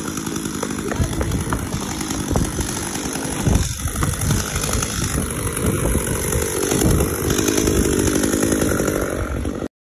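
Gas chainsaw running, its engine revving up about seven seconds in; the sound cuts off suddenly near the end.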